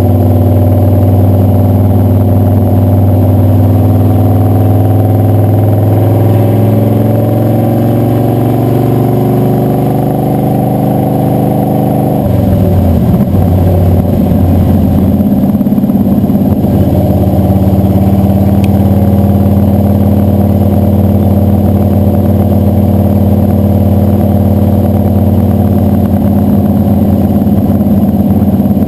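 Blueprint Engines 540 big-block Chevy V8 pulling the truck down the road, heard from underneath with the exhaust and road noise close to the microphone. The engine note holds steady, then falls in pitch for several seconds, breaks up briefly about halfway through, and settles back into a steady drone.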